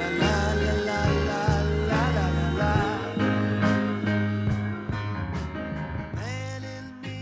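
Background music with a wavering melody line over sustained bass notes and regular percussion hits, fading down over the last couple of seconds.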